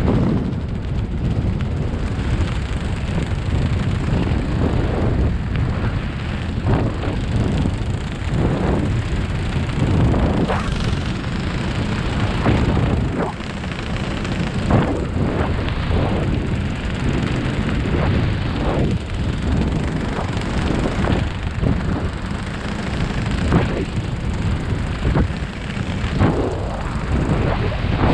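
Wind buffeting the camera's microphone during a descent under an open parachute canopy: a steady low wind noise broken by frequent irregular gusts.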